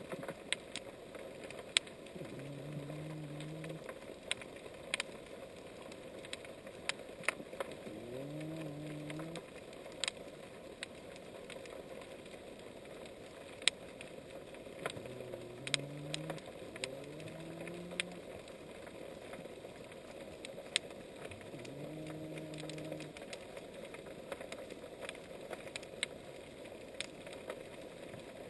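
Underwater sound of an unidentified animal, a marine mammal or a fish: five low, pitched calls of about a second each, several sliding upward at the start before holding steady. Many sharp, scattered clicks sound behind them.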